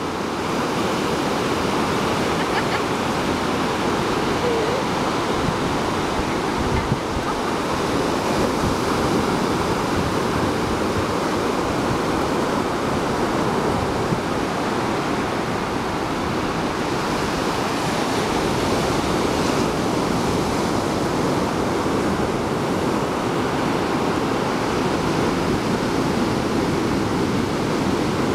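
Ocean surf breaking just offshore and washing up a sandy beach, a steady rush with slow gentle swells.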